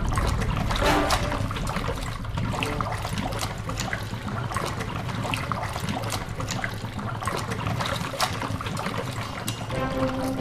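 Water trickling and bubbling, with many small pops scattered through it.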